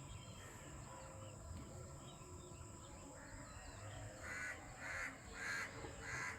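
A bird calling four times, short calls about half a second apart in the second half, over a faint outdoor background.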